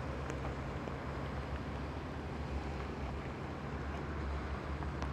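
Steady hiss of rain falling on the canal water and the canoe, with a low steady hum underneath.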